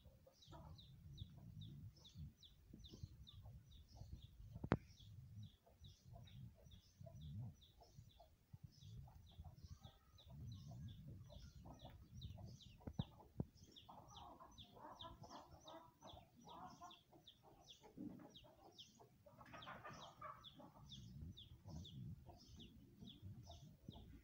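Hen clucking quietly, over a steady run of short, high, falling chirps about three a second. One sharp click about five seconds in.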